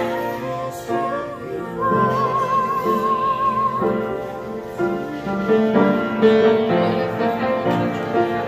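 Upright piano being played, a run of chords and melody notes, with a voice singing along that holds one wavering note with vibrato about two seconds in.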